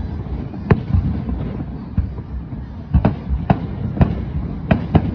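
Fireworks shells bursting overhead: about seven sharp bangs at irregular intervals, several coming close together near the end, over a low continuous rumble.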